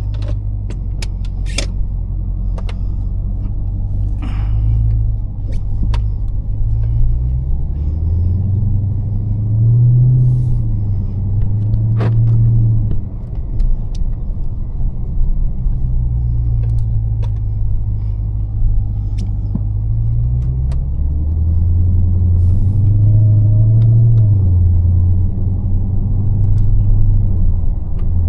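Dodge Charger Hellcat's supercharged 6.2-litre HEMI V8 running while driving at light load: a deep, steady rumble whose pitch rises and falls back twice as the car pulls away and shifts, with scattered light clicks.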